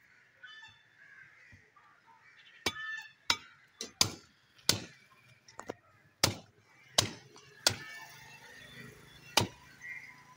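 Butcher's cleaver chopping into a skinned water buffalo head on a wooden block: about ten sharp blows at uneven intervals, starting a couple of seconds in.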